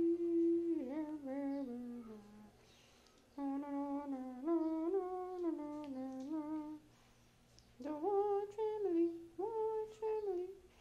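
A person humming a tune: three phrases of held, stepping notes, with short pauses between them.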